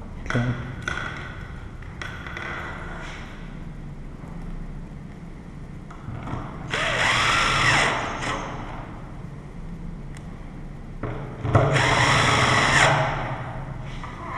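Cordless drill-driver running twice, about a second each time, driving screws home as the new lock is fastened in; the motor's pitch swings up and down during each run. Light clicks of parts being handled come in between.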